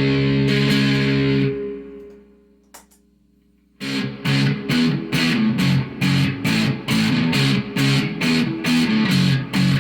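Electric guitar played through an amplifier and effects. A held chord rings and fades away over about two seconds, a faint click follows, and then rhythmic strumming starts again about four seconds in, at roughly two to three strokes a second.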